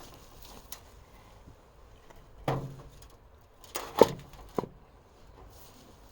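A brick being set down and pressed into place: a few hard knocks and scrapes, the sharpest about four seconds in.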